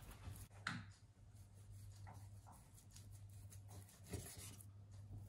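Near silence over a low steady hum, with a few faint soft rubbing sounds about a second, two and four seconds in, from a raw beef tongue being handled during trimming.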